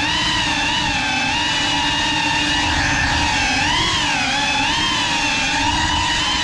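GEPRC CineLog35 cinewhoop's brushless motors and ducted propellers whining in flight, the pitch rising and falling together as the throttle changes.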